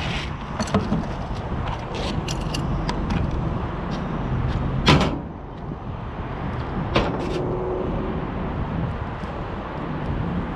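Scattered clicks and knocks of hand tools and metal parts being handled while working on an air-conditioner condenser's fan motor, with one louder knock about five seconds in, over a steady low rumble.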